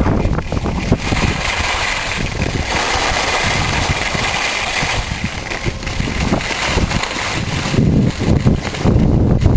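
Skis sliding and scraping over packed snow while the filmer skis, with wind rumbling on the microphone; the rumble is strongest at the start and again near the end, and a brighter hiss runs through the middle.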